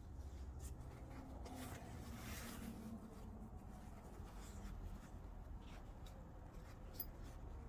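Faint rustling and scraping as a school bag's fabric and zipper are handled while a replacement zipper slider is fitted, with one short sharp click about seven seconds in.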